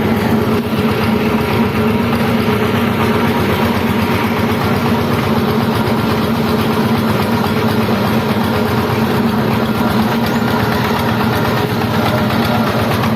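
Changfa single-cylinder diesel engine running steadily at an even speed while driving.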